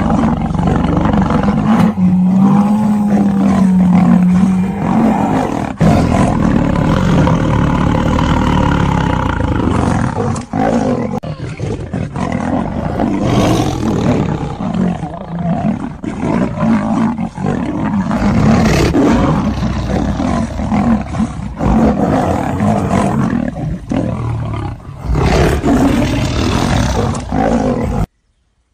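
Lion and tiger roaring and snarling almost without a break on an old film soundtrack, cutting off abruptly near the end.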